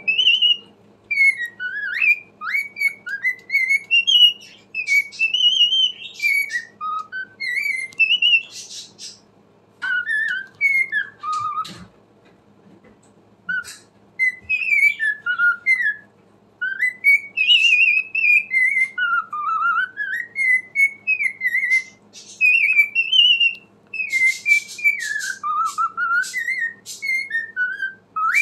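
Cockatiel whistling and warbling a long string of short, gliding chirpy notes, mixed with a few scratchy chattering bits, with a brief pause about halfway through.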